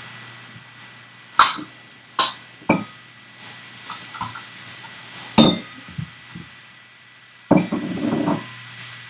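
Several sharp clinks and knocks, about five spaced over the first six seconds, then a short clatter near the end, like dishes or hard objects being handled, over a faint steady electrical hum.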